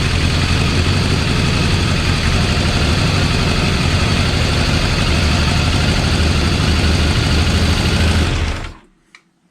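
Motorcycle engine running on freshly rebuilt Keihin carburettors, then cutting out abruptly near the end. It is struggling, which the owner puts down to the carbs' vacuum ports being left unplugged.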